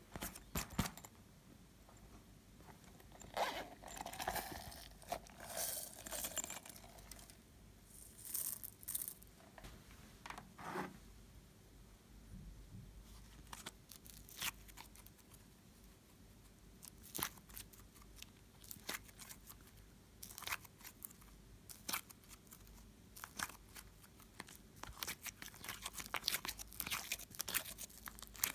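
Hands squishing, stretching and pulling apart slime, making irregular sticky crackles, pops and tearing sounds. The clicking grows denser near the end.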